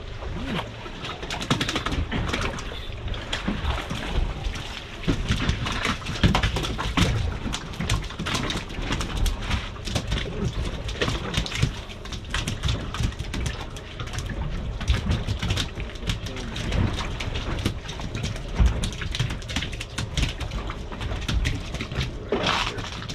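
Wind buffeting the microphone and water lapping and slapping against the hull of a drifting boat, with many small irregular knocks.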